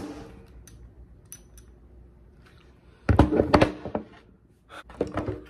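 Handling noise: a few faint clicks, then a cluster of knocks and thuds about three seconds in, and a few more clicks near the end.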